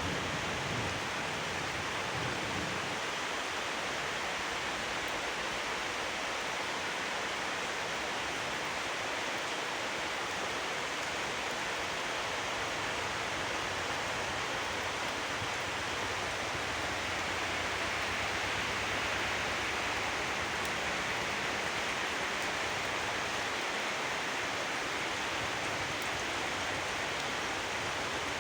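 Steady rain falling, an even hiss that swells slightly about two-thirds of the way through.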